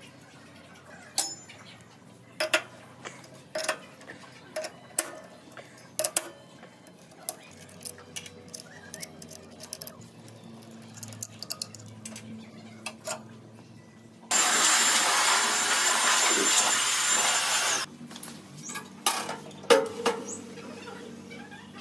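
Scattered metal clicks and knocks of hand tools, bolts and knife gibs on a planer's cutterhead as its knives are taken out. About two-thirds of the way through, a planer-knife grinding machine runs with a loud, steady grinding hiss that starts and stops abruptly after about three and a half seconds, followed by a few more knocks.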